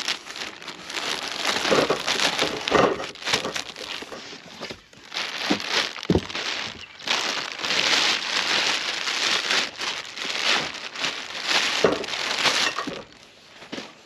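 Clear plastic bag crinkling and rustling in irregular handfuls as a rolled foam sleeping pad is pulled from its cardboard box and unwrapped, with a dull knock about midway.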